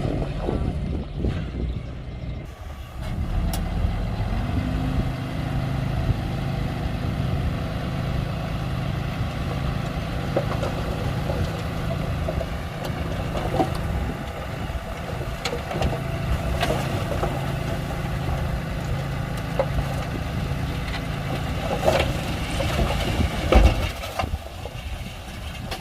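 Komatsu D31-P crawler bulldozer's diesel engine running steadily, with occasional sharp metallic knocks, the loudest near the end.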